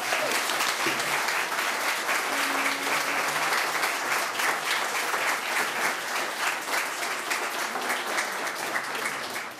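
Audience applauding: a roomful of people clapping steadily, starting to die away near the end.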